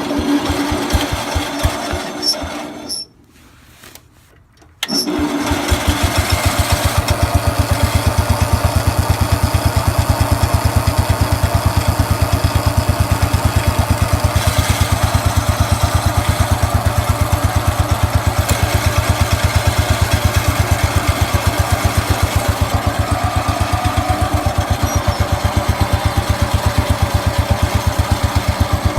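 1969 Cub Cadet 104 garden tractor's single-cylinder Kohler engine being cranked on choke for about three seconds, then a short pause. The engine starts about five seconds in and runs steadily with an even pulsing beat.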